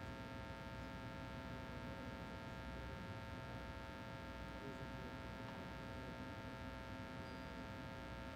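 Steady hum of an ice rink's room tone: a low rumble with several constant tones over it.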